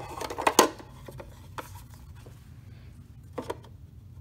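Hard white plastic parts of a self-watering planter knocking and clicking together as they are handled: a quick run of knocks in the first second, then a single knock about a second and a half in and another near the end.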